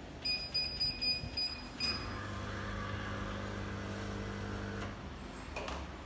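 An espresso machine's electronic beeper sounds about six short high beeps, then a steady electric hum runs for about three seconds and stops, followed by a single click.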